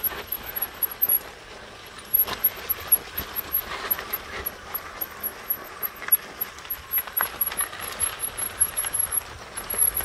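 Fat tires of a Fat Tad recumbent trike rolling over a sandy, rocky dirt trail, with an uneven crunch and small irregular clicks from sand and pebbles under the wheels.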